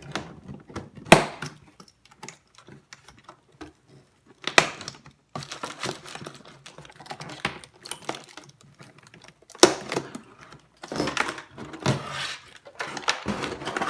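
Zip ties being snipped and plastic packaging handled: irregular sharp clicks and snaps, a few loud ones, among rustling.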